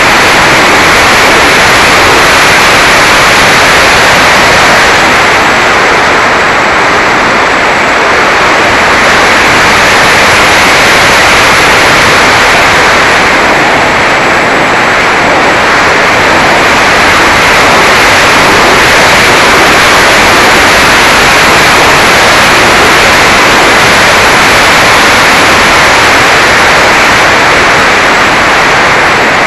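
Mini Talon RC plane in flight, heard from on board: a loud, steady rush of wind and electric motor and propeller noise, harsh and overdriven on the small onboard camera microphone. The top end fades a little twice, around six and fourteen seconds in.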